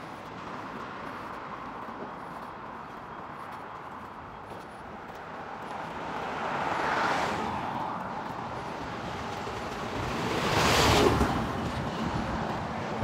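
Street traffic on a wide city road: vehicles passing one at a time. One passes about seven seconds in, and a louder one near the end, around eleven seconds.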